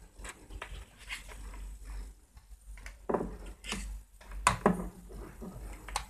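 Handling noise: multimeter test leads and a clamp meter being moved about on a bench, giving a few short, irregular taps and knocks, the loudest about three seconds and four and a half seconds in.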